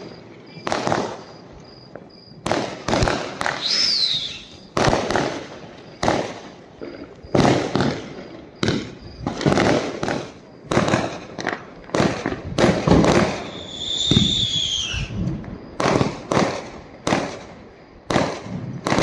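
Diwali firecrackers and fireworks going off in a steady irregular barrage of bangs, some close and loud, others fainter. A whistling tone rises over the bangs twice, about four seconds in and again around fourteen seconds.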